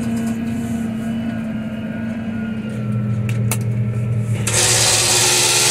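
Tractor engine running steadily, heard inside the cab; about three seconds in come a few sharp clicks from a console switch, and about a second later a loud, steady rushing noise sets in as the power take-off is switched on to drive the slurry tanker.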